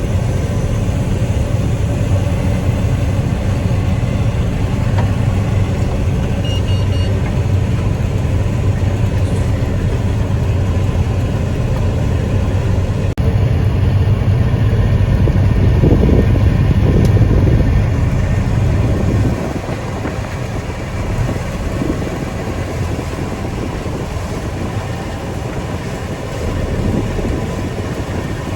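Heavy farm harvest machinery's engine running steadily with a deep hum. The sound steps up abruptly about halfway in and drops again a few seconds later.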